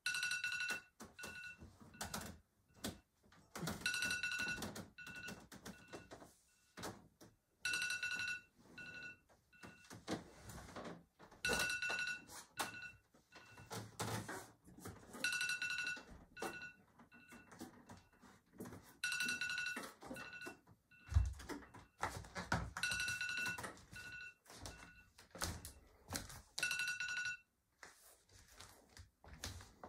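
Phone alarm or ringtone going off in a repeating pattern: a longer electronic ring about every four seconds with short beeps between, over scattered knocks and rustling. There is one heavy thump a little past two-thirds in.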